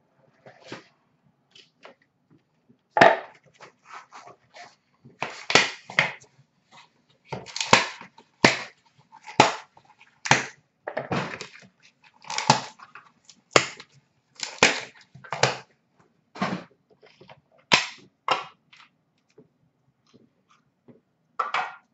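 A sealed hockey-card box being opened by hand: about twenty sharp crackles, rips and snaps of plastic and cardboard packaging, coming irregularly.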